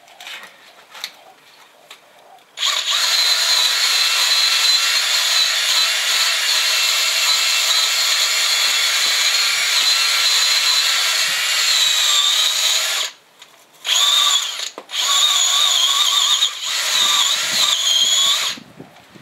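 Handheld drill spinning a wire wheel brush against the alloy wheel's centre bore, scrubbing out corrosion: a steady high whine with scraping. It runs for about ten seconds, stops briefly, then runs again twice more before stopping near the end.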